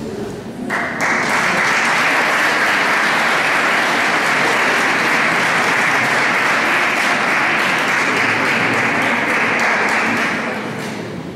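Audience applauding, starting suddenly about a second in, holding steady, and dying away near the end.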